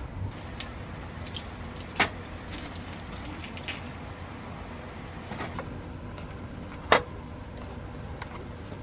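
Sharp clicks and knocks of tableware being handled, with two louder knocks about two seconds in and near seven seconds, over a steady low rumble.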